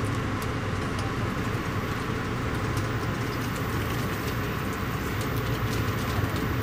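Passenger train running steadily, heard from inside the carriage: an even rumble with a low hum and faint, scattered ticks and rattles.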